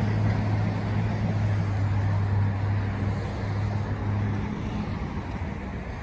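A car engine idling steadily, a low even hum.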